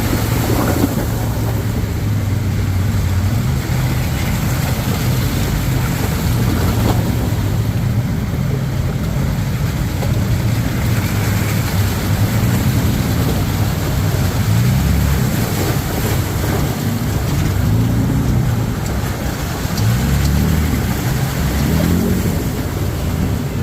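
Off-road vehicle engine running under varying throttle, its pitch rising and falling repeatedly, over a steady rushing noise.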